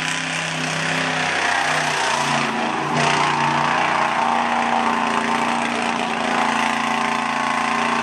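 Lifted full-size Ford Bronco's engine running at high revs while it pushes through a mud-bog pit. The pitch shifts up and down for the first few seconds, then holds high and steady.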